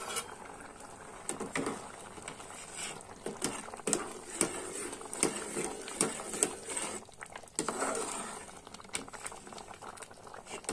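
Thick rice kheer bubbling in a metal pot, with many small irregular pops, while a slotted ladle stirs it and scrapes and knocks against the pot.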